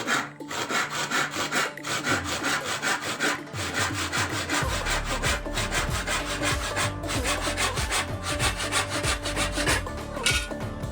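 Wood being sawn by hand, a steady run of quick, regular back-and-forth strokes. A low steady hum joins about halfway through.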